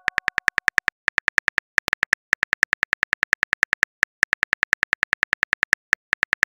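Phone keyboard typing clicks, the simulated keystroke sound of a texting app: a quick, even run of short taps, about seven or eight a second, with brief pauses about a second and a half in, near the middle and near the end.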